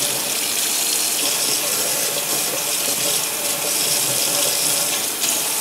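Tap water running steadily into a stainless steel sink, the stream splashing over a circuit board and the hands holding it.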